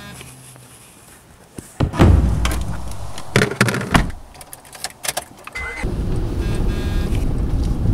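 Knocks, clicks and jangling of someone getting into a car and buckling up, followed by the car's engine running steadily from about two-thirds of the way in.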